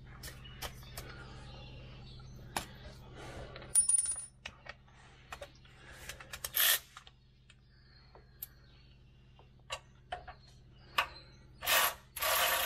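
Scattered metallic clicks and clinks of bolts and hand tools against a heavy-truck transmission bellhousing as the bolts are started by hand, one clink ringing about four seconds in. Near the end a handheld power tool starts running on a bolt with a loud, steady whirr.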